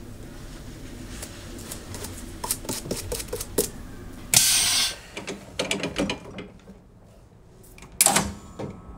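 A small brush working the leather sole of a shoe: a run of small clicks and scratches, with one loud, harsh stroke about four seconds in. Near the end comes a short loud clack with a hiss, as the shoe goes under a sole press.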